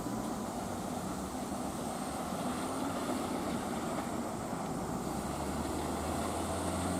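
Train at a station platform: a steady low engine drone over rumbling noise, growing a little stronger near the end.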